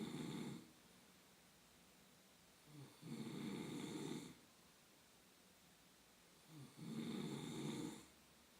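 Snoring in a steady rhythm, one snore about every four seconds. A snore trails off about half a second in, then two more follow, each lasting just over a second.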